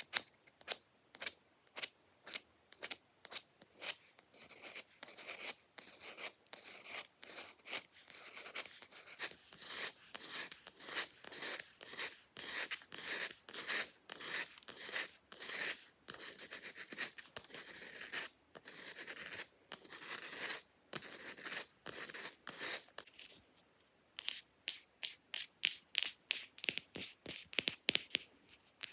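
Fake nails scratching fast across a surface in rapid strokes, several a second, coming in a dense run through the middle and quickening into very fast, closely spaced strokes near the end.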